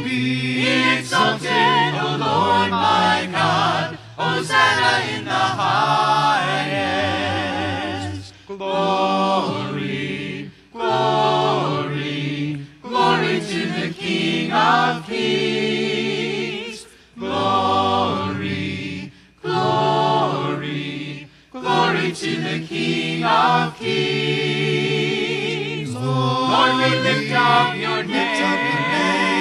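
Church congregation singing a hymn a cappella, many voices with no instruments, in sung phrases broken by short pauses for breath.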